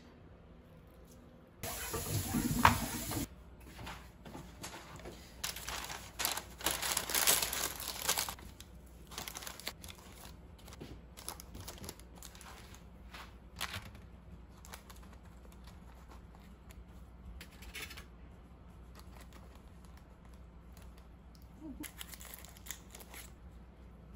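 Rustling and crinkling in several bursts, loudest about two seconds in and again from about five to eight seconds in, with fainter rustles later.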